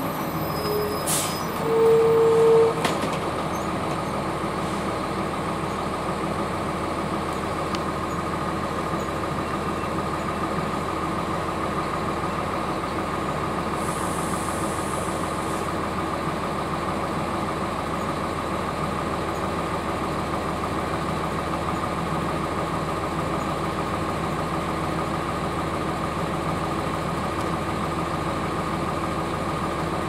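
A bus's Cummins ISC diesel inline-six idling steadily, heard from inside the cabin, with a constant whine over the engine drone. A short beep comes near the start, then a louder, longer beep about two seconds in, and a brief hiss of air about halfway through.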